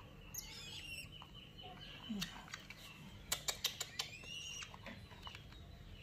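Downy raptor chicks giving thin, high begging chirps that rise and fall, as they are hand-fed. A quick run of sharp clicks comes about halfway through.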